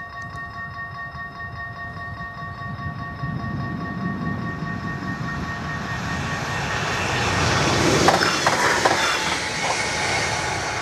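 Level-crossing warning bells ringing in a rapid pulsing rhythm as an express passenger train approaches and passes. The train's rumble builds to a peak with a quick run of wheel clacks about eight seconds in, drowning out the bells, then starts to fade.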